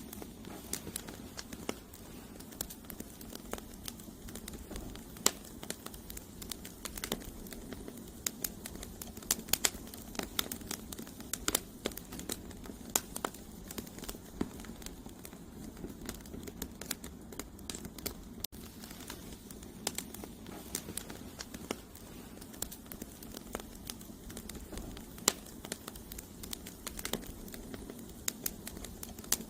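Wood campfire burning: logs crackling and popping in irregular sharp snaps over a steady low rush from the fire.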